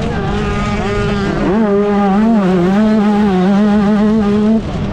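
125cc two-stroke motocross bike engine running at high revs under racing throttle, its pitch dipping and climbing with the throttle, then the throttle shuts off near the end.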